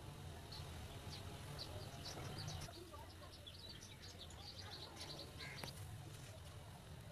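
Small birds chirping faintly in quick, irregular short high notes over a steady low hum.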